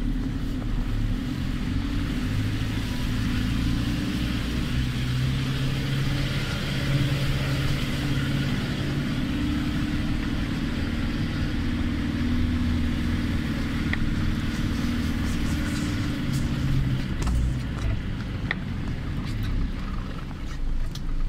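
Land Rover Defender 110 Td4's four-cylinder turbodiesel engine pulling steadily uphill on a snowy track, heard from inside the cab, its note rising and falling a little with the throttle.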